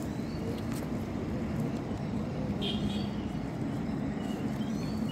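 A steady low engine hum, with a few faint high chirps about two and a half seconds in.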